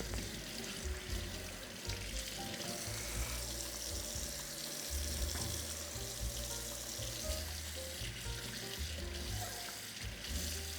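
Tap water running steadily with a constant hiss, flushing the 120-grit mud and residue off the flattened diamond sharpening stone and glass plate.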